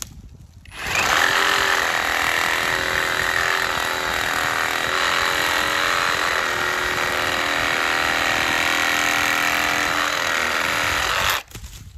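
Hercules 20V brushless cordless reciprocating saw with a 12-inch Diablo carbide-tipped pruning blade, cutting through a tree limb. The motor starts about a second in, runs at a steady level under load, and stops abruptly near the end.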